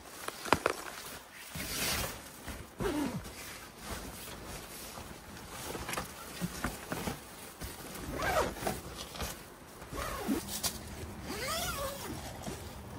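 Tent zipper being drawn in several short pulls, with a few sharp clicks and knocks in between.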